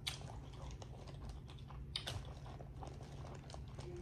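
Clear plastic seafood-boil bag crinkling and rustling as a hand digs through it, with a string of small crackles and two sharper ones, at the start and about two seconds in.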